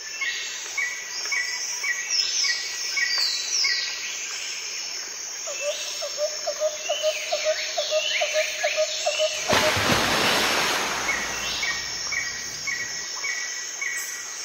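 Birdsong ambience: several birds giving repeated short chirps and falling whistled calls, with a quick pulsing trill. About nine and a half seconds in, a loud burst of rushing noise lasts a second or two.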